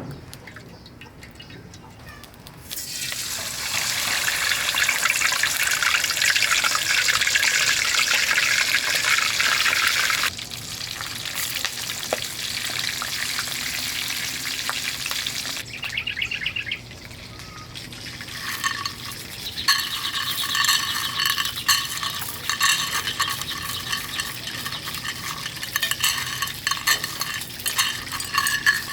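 Fish frying in hot oil, sizzling loudly from about three seconds in and settling lower after about ten seconds. In the last third the sizzle carries steady ringing tones and clicks, the sound of a metal utensil working in the pan.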